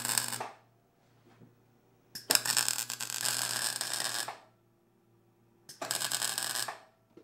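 MIG welder laying three short tack welds on steel go-kart frame tabs, each arc a loud sizzling crackle. The first ends about half a second in, a longer two-second tack follows, and a one-second tack comes near the end, with a low hum between them.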